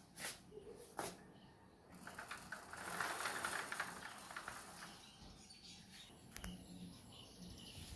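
Sliding metal-mesh security screen door being opened: a couple of sharp clicks, then a rattling run of rapid ticks for about two seconds as it rolls along its track.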